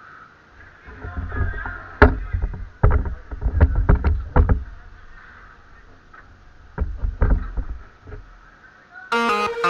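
A run of sharp knocks and heavy thumps, several in quick succession, over a low rumble. Music starts suddenly near the end.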